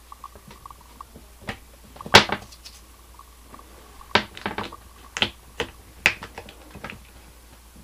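Bumpers being pressed into the underside of a plastic toilet seat: a series of short sharp clicks and knocks, the loudest about two seconds in and several more close together between four and six seconds in.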